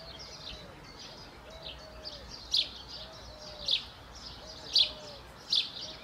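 A small bird chirping repeatedly, short sharp high chirps about once a second, with a fainter lower arched call repeating underneath.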